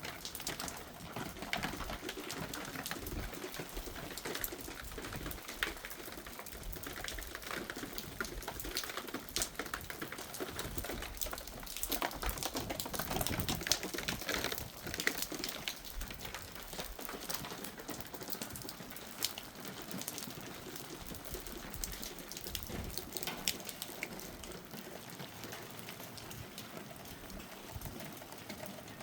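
Hail falling: a dense, steady pattering of small hailstones ticking and clicking on hard surfaces, heaviest about halfway through.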